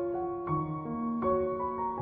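Slow, sad background music on piano: single notes and chords struck and held so that they overlap, a new note entering about every half second.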